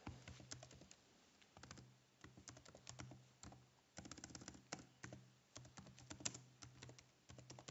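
Faint typing on a computer keyboard: irregular key clicks in quick runs with short pauses between them.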